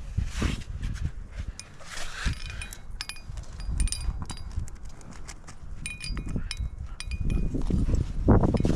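Metal climbing gear, carabiners and protection on a rack, clinking and jingling in a run of sharp ringing clicks through the middle, over rustling and a low rumble of handling noise.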